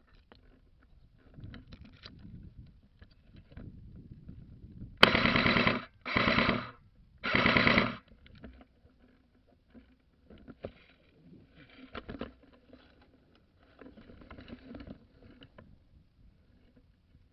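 Three short bursts of full-auto fire from an airsoft gun, each under a second long, in quick succession about five seconds in, with quiet rustling and faint knocks around them.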